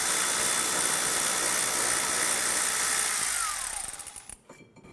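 Power tool motor running steadily as it spins out a 13mm caliper bracket bolt, then winding down with a falling pitch about three and a half seconds in.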